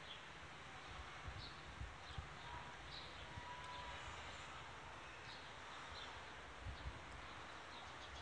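Faint outdoor background: a steady hiss of distant traffic with a few short high chirps and low bumps of wind on the microphone. A faint steady tone sounds between about one and three and a half seconds in.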